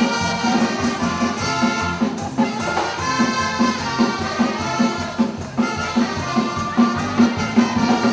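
Live dance band music: horns play a melody over a drum kit and cymbals with a steady beat.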